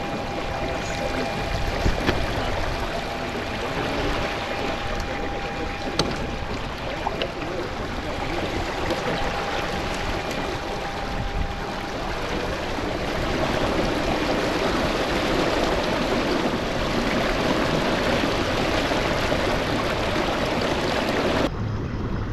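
Steady rush of water and wind noise around a kayak on open water. A faint steady high tone runs through the first half and stops about halfway.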